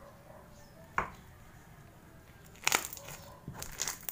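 Green slime with black beads mixed in, stretched and squeezed by hand, giving sharp pops and crackles: a single pop about a second in, then a quick cluster of them from near three seconds on.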